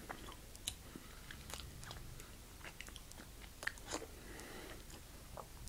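Faint mouth sounds of a person chewing a York Peppermint Pattie, a soft chocolate-covered peppermint cream: scattered small clicks and smacks.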